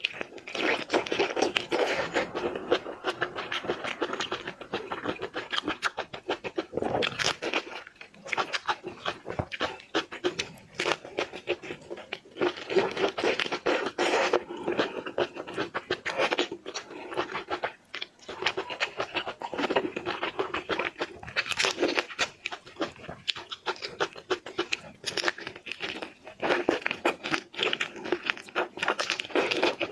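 A person chewing and smacking food close to the microphone: irregular wet mouth clicks, crunches and slurps, in bursts with short pauses.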